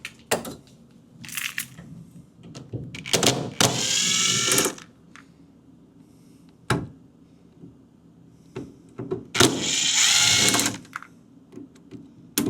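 Cordless power drill-driver spinning twice, about 1.5 s each time, its whine rising as it spins up, backing out the screws of a refrigerator's bottom hinge bracket. Short clicks and knocks of the tool and screws come between the runs.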